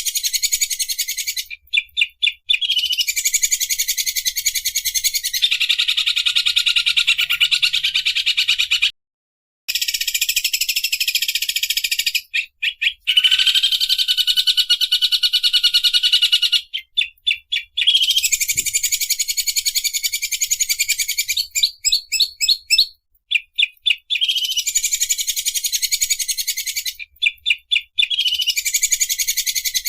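Greater green leafbird (cucak ijo) singing long, very fast rattling trills like a running sewing machine, each lasting several seconds, broken by runs of short sharp notes.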